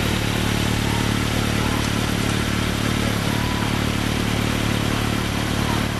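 Kawasaki Z750S inline-four motorcycle engine idling steadily through a Nojima aftermarket racing exhaust.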